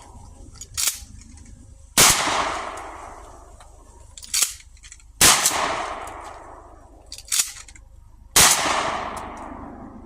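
Mossberg Maverick 88 20-gauge pump shotgun fired three times, about three seconds apart, each shot trailing off in a long echo. A short, quieter double clack of the pump action being worked comes about a second before each shot.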